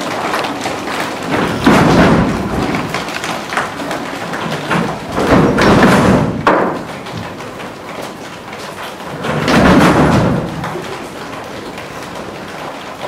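Heavy thuds echoing in a large hall, from children playing with a ball on the floor. The loudest come about two, six and ten seconds in, with lighter taps between them.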